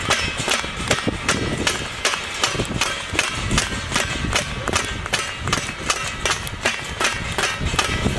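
Rhythmic banging, about two to three sharp strikes a second, with a metallic ringing held underneath, as when metal utensils or bells are struck over and over.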